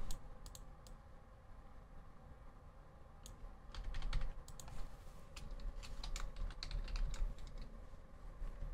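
Typing on a computer keyboard: irregular key clicks that start about three seconds in and run on to near the end.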